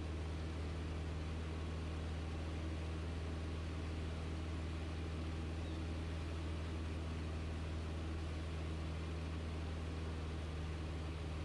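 Single-engine light aircraft's piston engine and propeller running steadily in flight, heard inside the cockpit as an even low drone over a hiss of airflow.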